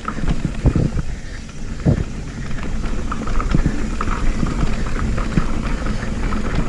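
Mountain bike rattling and knocking over a rough trail at speed, with heavy wind rumble on the microphone.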